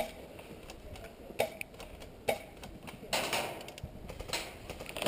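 Airsoft pistol fired in single shots: a few sharp cracks about a second apart, then a longer rustling noise about three seconds in.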